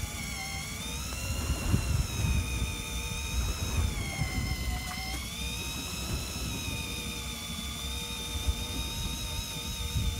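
Electric fishing reel's motor whining as it winds in against a hooked fish on a bent rod, its pitch sagging and recovering as the fish pulls. A low rumble runs underneath.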